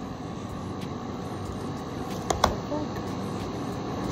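Steady background hum, with two sharp clicks close together about two and a half seconds in, from the plastic lid of a paper food cup being handled.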